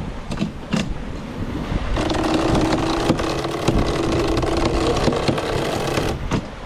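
Sailboat sheet winch cranked with a winch handle to trim in the Yankee jib sheet: a couple of clicks, then about four seconds of rapid ratcheting clicks with a steady hum, stopping suddenly.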